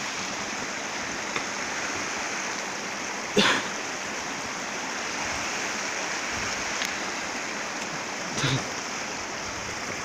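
A small river running, a steady rush of water. There is a loud, brief, sharp noise about three and a half seconds in and a smaller one near the end.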